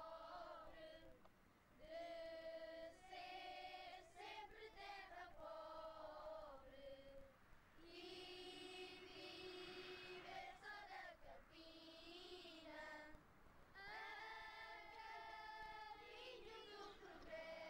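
Children's choir singing cante alentejano unaccompanied, in long drawn-out phrases broken by brief pauses for breath.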